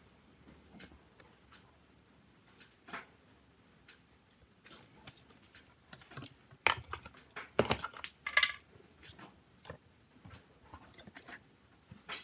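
Scattered light clicks and taps of small tools being handled at a repair bench, as multimeter test probes are used and set down. The clicks come sparsely at first, then in a busier run of sharper clicks about halfway through.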